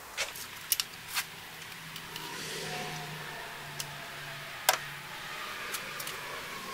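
A few sharp clicks and knocks of hand tools being handled and set down, the loudest about two-thirds of the way through, over a faint low hum that swells and fades in the middle.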